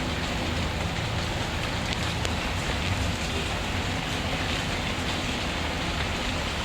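Steady rainfall, an even wash of noise, with a few faint crackles from a wood fire.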